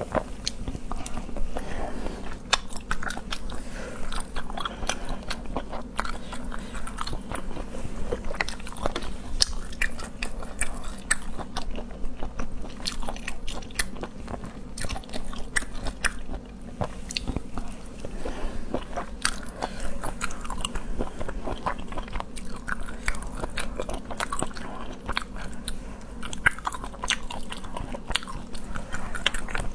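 Close-miked eating of seafood: continuous chewing and biting with frequent small crunches and clicks, over a low steady hum.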